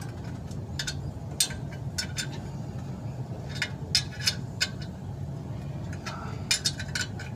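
Irregular sharp metallic clinks of clutch pressure-plate bolts being handled and fitted by hand against the flywheel, over a low steady hum.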